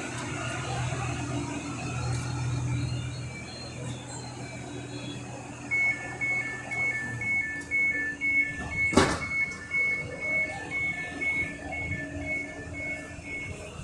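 Door-closing warning signal of an ETR 104 Pop regional train: a two-tone beep alternating high and low, about two to three beeps a second, starting about six seconds in and running almost to the end. A low steady hum dies away around seven seconds in, and one sharp knock comes about nine seconds in.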